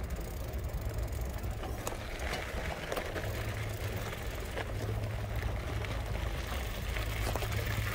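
A small vehicle rolling slowly over a gravel and dirt road, its tyres crunching under a steady low hum, with a few light clicks.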